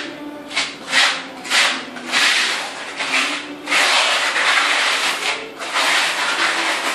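Notched trowel scraping and combing tile adhesive across a concrete floor: four short quick strokes in the first two seconds, then three longer sweeping strokes.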